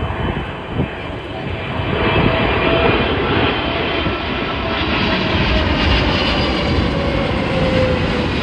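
Jet airliner's engines, a loud roar that swells about two seconds in, with a whine that slowly falls in pitch as the aircraft passes.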